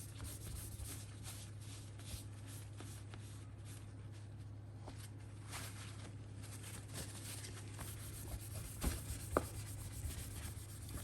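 Paper towel wiping and rubbing excess epoxy off a refrigerator freezer handle mount: faint scuffing strokes, with a few light clicks and knocks near the end, over a low steady hum.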